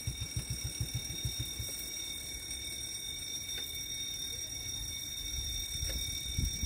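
Railway level-crossing warning bell ringing continuously as a steady high-pitched tone, with low irregular rumbling underneath.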